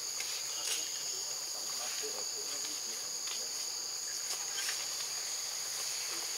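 Insects droning in a steady, high-pitched chorus, with a few faint clicks scattered through it.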